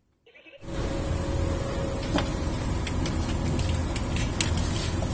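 Steady engine-room machinery drone, starting after a half-second gap, with a few sharp clicks as cartridge fuses are pulled from their holders on a 24 V DC fuse panel.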